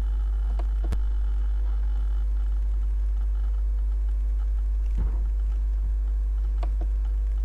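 Steady low hum with a few faint clicks: about a second in, about five seconds in, and near the end.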